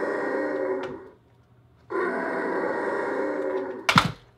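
Mattel Dinotrux Mega Chompin' Ty Rux talking toy playing a rough, growling roar sound effect through its small built-in speaker, twice, each about two seconds long. A sharp clack comes near the end.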